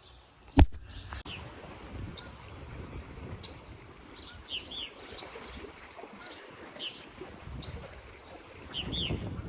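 Birds chirping: many short, high chirps, some in quick pairs. There is a sharp knock about half a second in, and a low rumble runs underneath, growing louder near the end.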